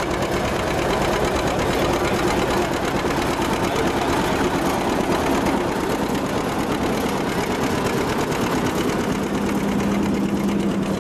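John Deere 70 two-cylinder tractor engine running steadily under load while pulling a three-bottom plow through the soil.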